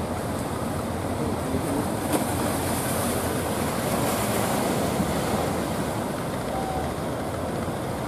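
Surf breaking and washing on the shore as a steady hiss, swelling a few seconds in and easing again.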